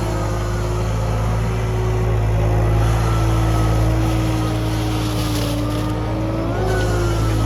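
Excavator engine and hydraulics running steadily with a deep hum and a tone above it that drifts slightly in pitch, rising briefly near the end. The excavator is driving a hydraulic-motor brush-cutter rotor.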